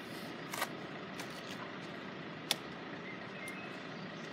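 Faint steady rumble of a Class 142 Pacer diesel multiple unit idling at the station platform, broken by two short sharp clicks about two seconds apart.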